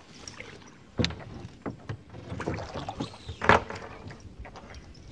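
Water splashing and sloshing with a few irregular knocks, the loudest about three and a half seconds in.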